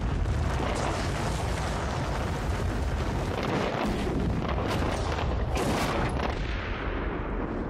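Concrete cooling towers collapsing in a controlled explosive demolition: a continuous deep rumble of falling concrete just after the blast, with a few sharper cracks partway through.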